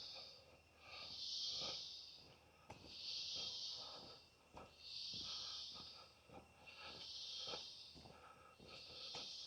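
Rainforest insects buzzing in a regular pulse: a high hissing buzz, each about a second long, swells and fades every second and a half to two seconds. Faint scattered clicks and rustles sit beneath.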